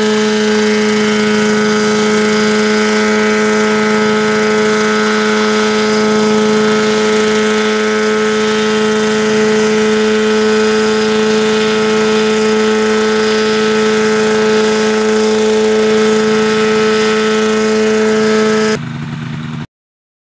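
Helitrike microlight helicopter's engine and contra-rotating rotors running loud and steady, a constant droning hum at one unchanging pitch. It drops briefly, then cuts off abruptly near the end.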